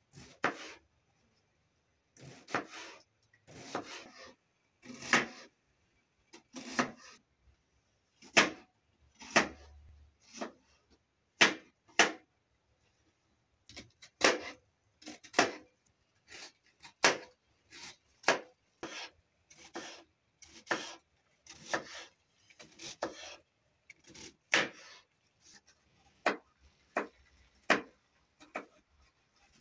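Kitchen knife chopping an onion on a plastic cutting board: irregular knocks of the blade on the board, roughly one a second, some drawn out into short slicing scrapes.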